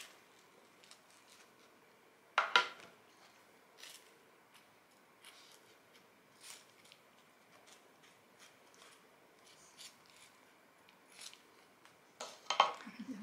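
Knife spreading chestnut spread across a slice of toasted bread, faint intermittent scraping and light ticks. A sharp click about two and a half seconds in and a short cluster of louder knocks near the end.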